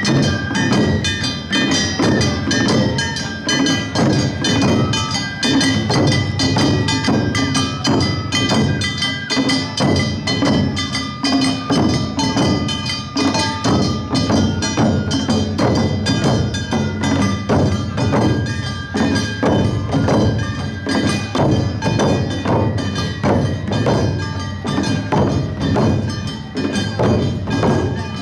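An Awa odori narimono band playing the festival's two-beat rhythm: a fast, steady clang of hand gongs over drum beats, with a held high melody line above.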